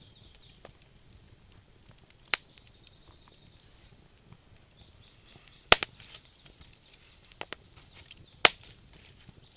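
Wood fire crackling in a fireplace: scattered small snaps over a soft hiss, with three loud sharp pops, about two, five and a half and eight and a half seconds in.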